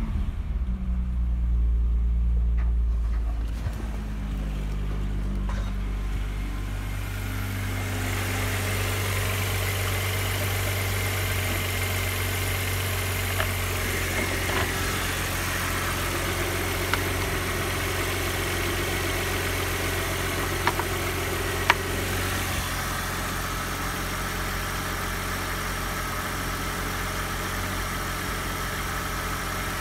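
Audi A6 C4's 2.6-litre V6 petrol engine (ABC) held at about 3000 rpm, then dropping back to a steady idle about three seconds in. From several seconds in it is heard close up under the bonnet, with more of its higher-pitched mechanical noise and a few sharp clicks.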